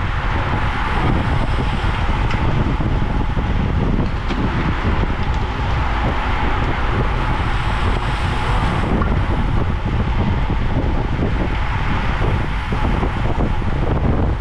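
Wind buffeting the microphone of a bike-mounted or rider-worn camera on a road bike at race speed: a steady rushing noise with a low rumble.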